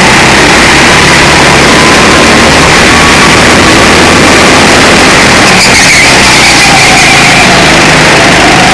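Go-kart engine heard loud and close from a camera mounted on the kart, revving up as the kart accelerates. The pitch drops around the middle as the kart slows for a corner, then climbs again near the end.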